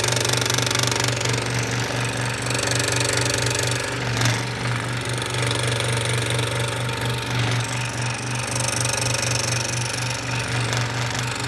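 Electric woodworking power tool running continuously, a steady rapid buzzing rattle with hiss.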